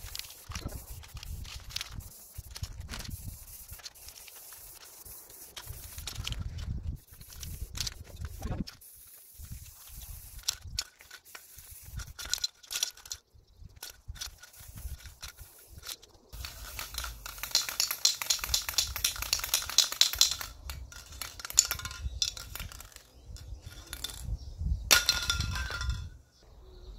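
Aerosol lacquer spray can in use on wire shelving: intermittent short hisses of spraying, scattered light clinks, and for about four seconds past the middle a fast, even rattle of the mixing ball as the can is shaken.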